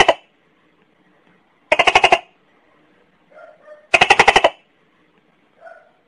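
Gecko calling: loud bursts of rapid clicking chirps, about eight clicks in half a second, repeated roughly every two seconds. Fainter, softer chirps come just before the second and third bursts.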